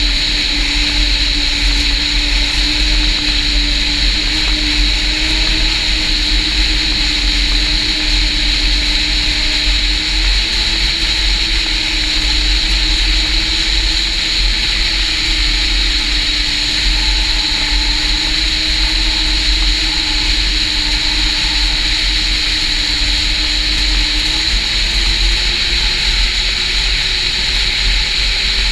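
Snowmobile engine running steadily at cruising speed, heard from the rider's seat, its drone wavering slightly and rising in pitch near the end, with a steady high-pitched whine over it.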